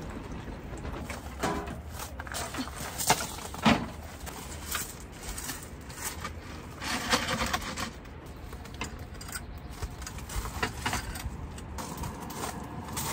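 Handling noises of camping gear being moved and set down: scattered light clicks and knocks, with two sharper knocks about half a second apart a little after three seconds in.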